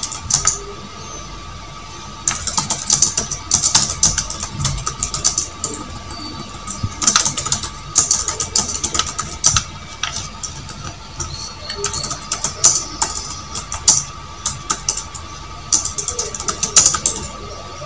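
Typing on a computer keyboard in bursts: quick clusters of key clicks every few seconds with short pauses between, over a steady high whine.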